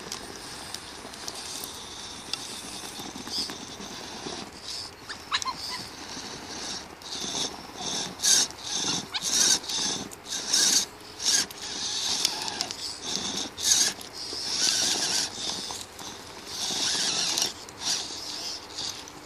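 Radio-controlled rock crawlers, a Maverick Scout among them, driving up a dirt and rock slope: their electric motors and geared drivetrains whine in irregular throttle surges, with tyres scrabbling on dirt and stones. The surges grow stronger and more frequent after the first several seconds.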